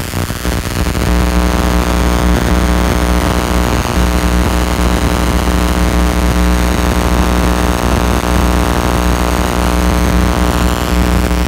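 Steady electrical hum with a hiss over it, from a home-built high-voltage rig running; the hum settles in about a second in and dips briefly around four seconds.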